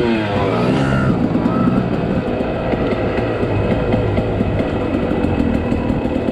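Dirt bike engine revving up as the bike pulls away, then running steadily along the trail, heard up close from the rider's own bike.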